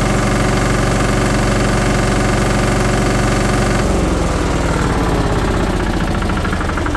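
Bomag BPH80/65 reversible plate compactor's diesel engine running steadily, then about four seconds in its note changes abruptly and falls in pitch, slowing into a lower, pulsing run.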